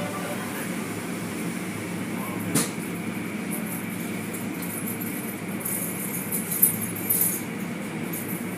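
Automatic tunnel car wash running, heard from inside a car going through it: a steady machinery rumble with a faint steady whine, water spray and cloth strips slapping the car. There is a sharp knock about two and a half seconds in and a cluster of sharp slaps around six to seven seconds in.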